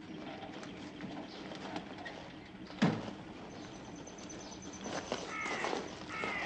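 Outdoor ambience of birds chirping and steps crunching on a gravel driveway, with one heavy thump about three seconds in.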